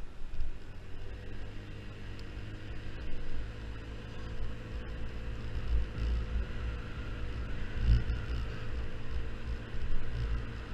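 Yamaha Zuma 50cc scooter engine running steadily while riding, with wind buffeting the microphone in uneven low gusts.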